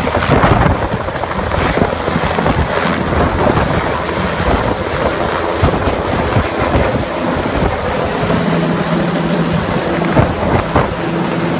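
Medical helicopter's rotor and turbine engine running loudly as it lifts off from the road and climbs away.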